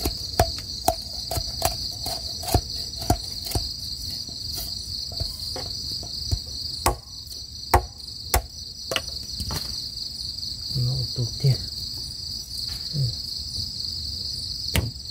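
A machete repeatedly strikes a metal rod on a wooden chopping block. The knocks come about two a second at first, several with a short metallic ring, then grow sparser. Crickets chirp steadily throughout.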